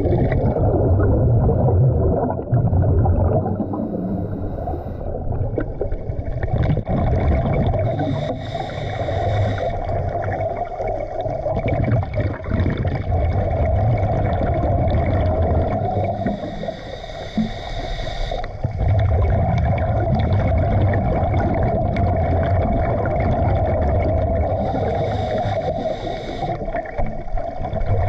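Underwater sound through a camera's waterproof housing: scuba regulator breathing over a steady low rumble, with a hissing rush of exhaled bubbles about every eight seconds. A few sharp knocks are heard now and then.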